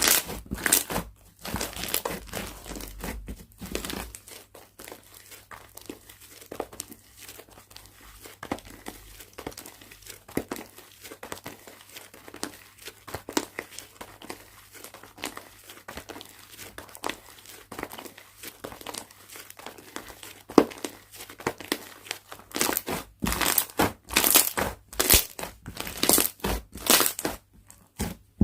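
Slime being squeezed, stretched and pressed by hand, giving a run of sticky crackles and small popping clicks. The crackling is denser and louder in the first few seconds and again from about 23 seconds on, and lighter in between.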